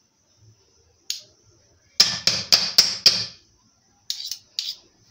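Metal spoons clinking against each other and the rim of a metal pan while scraping whipped cream off: one tap, then a quick run of five sharp knocks about two seconds in, and two more near the end.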